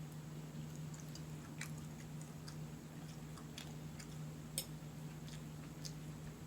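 A person chewing a mouthful of omelette: scattered soft, wet mouth clicks, the loudest about four and a half seconds in, over a steady low hum.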